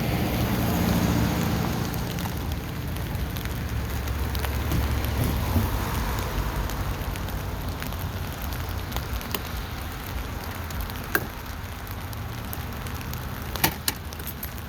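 Steady rain falling on a tent. A low rumble fades over the first few seconds, and a few sharp clicks come near the end.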